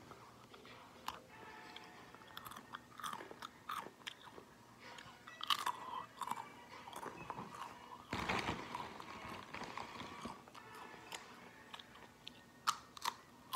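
Doritos tortilla chips being bitten and chewed: irregular crisp crunches, with a denser stretch of chewing about eight seconds in.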